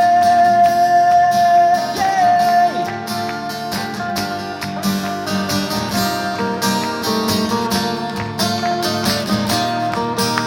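Live acoustic-guitar pop-rock outro: a singer holds a long final note for about the first two seconds while two acoustic guitars strum chords, the guitars carrying on alone after the note ends.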